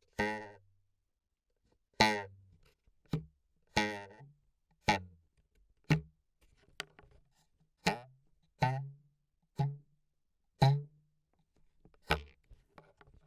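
Foley props struck one at a time, about once a second, recorded through a contact mic: each hit gives a sharp twang that rings briefly with a pitched tone, some with a wobbling pitch, like cartoon boings.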